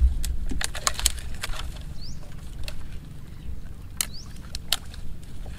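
Branches and dry twigs being bent and snapped by hand, with irregular sharp cracks and rustling. A few short rising bird chirps are heard, about two and four seconds in.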